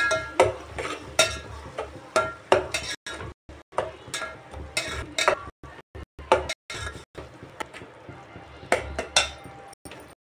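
A metal spatula stirs and scrapes wet onion-tomato masala around a metal pot, with irregular metallic scrapes and clinks against the pot, several a second, as the masala is roasted.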